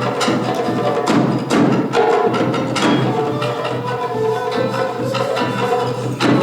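Japanese taiko ensemble music: sharp, irregular drum and wooden strikes over a held melodic line.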